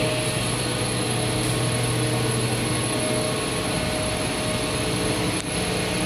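An 80+50 PVC audio cable extrusion line running at high line speed gives a steady mechanical whir and hum, with a low steady drone under it. A brief click comes about five seconds in.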